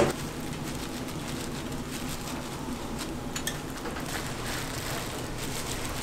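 Fish cake sheets and their plastic packaging handled on a steel counter, with a few light clicks, over a steady low hum; a short thump right at the start.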